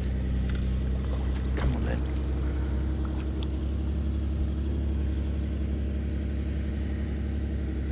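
Distant JCB digger's diesel engine running steadily, a constant low drone.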